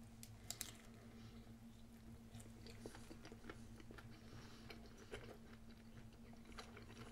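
Faint mouth sounds of a person biting into and chewing a soft crepe filled with fruit and whipped cream, with a couple of sharp clicks about half a second in. A low steady hum runs underneath.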